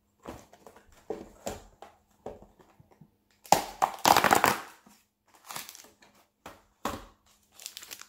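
Plastic wrapper of an individually wrapped chocolate-chip cookie packet crinkling as it is handled and opened. It comes in short irregular rustles, with the loudest, longest crackling about three and a half seconds in.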